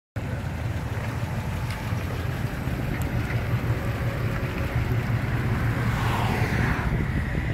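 Engine of an old Chevrolet C10 pickup running with a steady low exhaust note as the truck drives slowly away.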